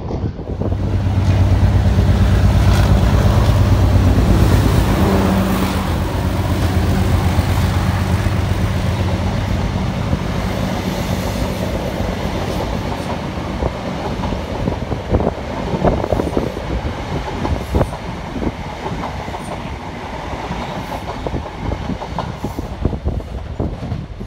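A train of ex-First Great Western HST Mark 3 coaches passing at close range. It opens with a loud, steady diesel engine drone, which fades after about five seconds. Then comes the rhythmic clickety-clack of the coach wheels over the rail joints as the train runs past and away.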